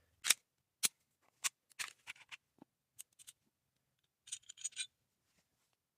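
Gen 3 Glock 19 pistol being cleared and field stripped: a series of sharp metallic clicks from the slide and parts over the first three seconds, then a short rattling cluster about four seconds in.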